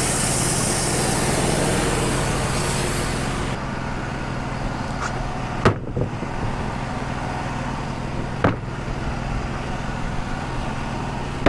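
Wood-Mizer LT35 sawmill running, its band blade cutting through a pin oak log with a steady hiss for the first few seconds. Then the cut ends and the mill's engine and sawdust blower drone on, with a few sharp knocks.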